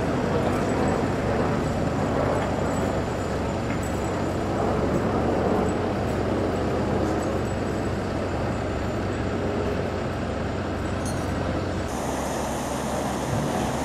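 Steady rumble of engines from construction machinery and road traffic, with a low steady hum. About twelve seconds in it changes to a hissier rushing sound of river water from a weir.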